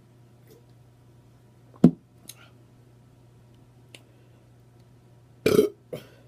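A woman burping while eating: one short burp about two seconds in, then a louder, longer burp near the end followed straight away by a smaller one, with faint mouth clicks in between.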